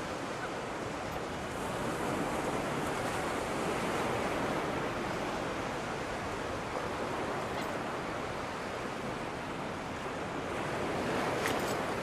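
Ocean surf washing steadily, its rush swelling and easing slowly as the waves come in.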